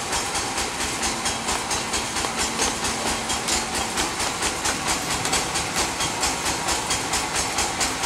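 Sawmill machinery running steadily, making a hissing, even pulse of about five beats a second.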